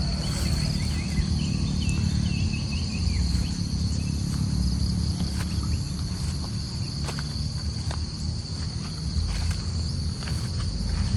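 Insects trilling steadily in one high, unbroken tone, over a low steady rumble. A few quick higher chirps come in the first few seconds.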